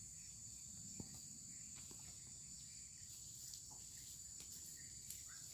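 Faint, steady high-pitched insect chorus, with a few soft ticks.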